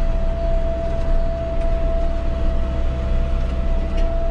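John Deere 6230 tractor's diesel engine running steadily under load, pulling a subsoiler, heard from inside the cab. A steady high whine sits over the low engine drone.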